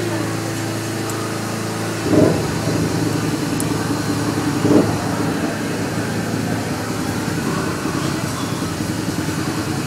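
Steady motor hum of a dental suction unit running during an oral surgery, with two brief louder swells about two and five seconds in.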